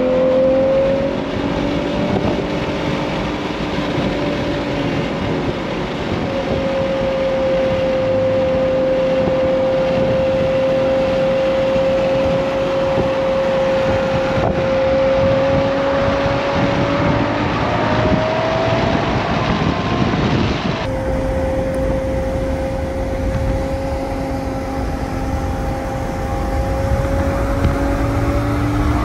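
Ferrari 812 GTS's naturally aspirated 6.5-litre V12 cruising at a steady engine speed under wind and road noise, with the engine note rising briefly a little past halfway.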